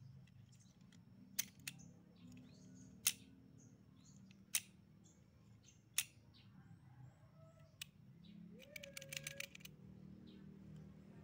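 Sharp single metal clicks about every second and a half as a homemade crossbow trigger of aluminium square tube and bolts is worked by hand, then a quick rattle of small clicks near the end.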